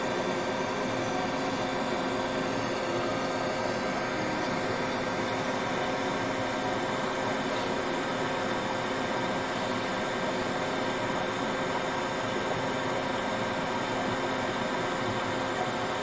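Hot air rework station blowing a steady stream of hot air through its nozzle: a constant hiss with a faint hum, as it heats the solder on a phone's charging port to desolder it.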